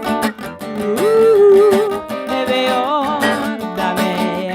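A woman singing long, wavering notes over a strummed acoustic guitar, in a live folk-style song.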